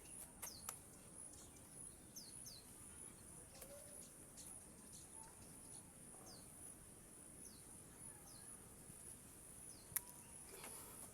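Quiet riverside ambience with birds giving short, high chirps that slide downward, scattered every second or so, and one sharp click about ten seconds in.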